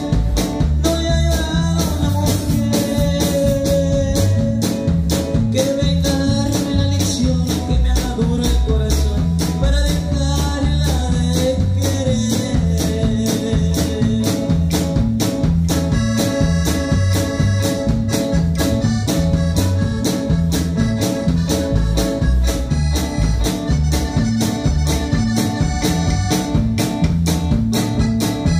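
A live band playing a steady, upbeat groove on electric guitar, bass guitar, drum kit, congas and keyboard. A wandering melody line runs through the first half, and held chord tones come in about halfway through.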